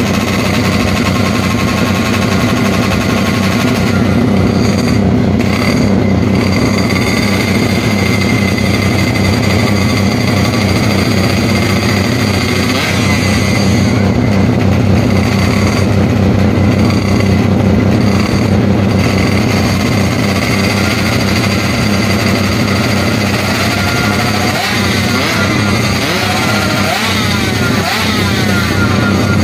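Drag-racing motorcycle engines running loudly at the start line, their revs rising and falling, with more rev changes near the end.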